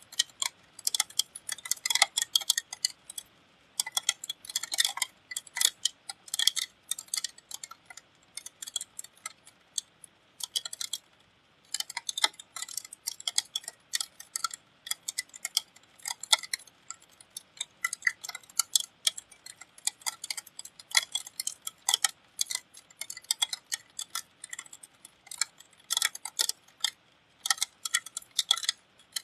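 Rain dripping and pattering close to the microphone, heard as irregular sharp ticks, several a second, with a couple of short pauses.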